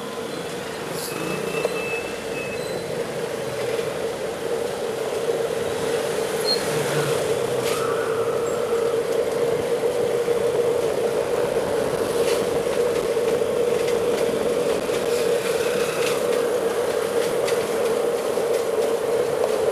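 Steady road noise of a bicycle ride among traffic: a constant hum that grows louder over the first several seconds, with passing vehicles and a few faint clicks.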